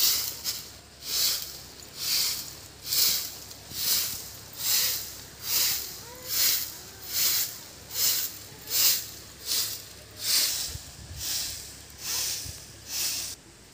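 Grass broom sweeping a dry bare-earth yard: a brushing swish a little more than once a second, one per stroke, stopping near the end.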